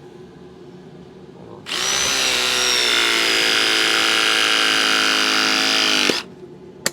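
Ridgid RP 340 battery press tool running a press cycle on a 2-inch Viega press fitting: its motor whines steadily for about four and a half seconds, the pitch dipping slightly at the start, then stops with a click. A sharp tap follows near the end.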